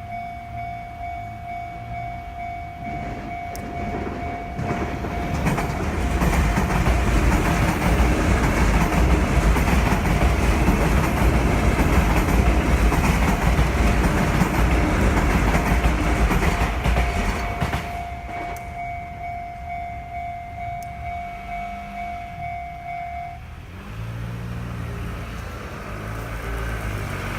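A railway level crossing's warning bell rings in an even repeating pulse while a Sagami Railway train runs through the crossing. The train's rumble and wheel noise build from about four seconds in, are loudest in the middle, and fade away. The bell stops a few seconds before the end.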